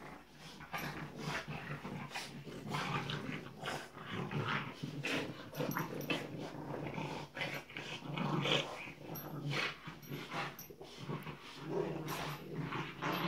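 Two French Bulldog puppies growling on and off in play as they tussle and tug at a toy together.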